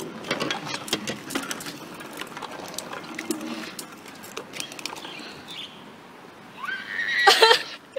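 Scuffs and knocks from a hand-held phone camera being jostled, then near the end a child's loud, high, wavering cry lasting under a second.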